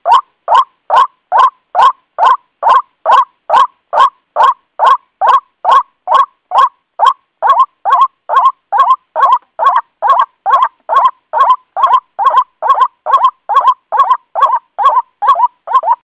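White-breasted waterhen calling: a steady, unbroken series of short repeated call notes, about two and a half a second.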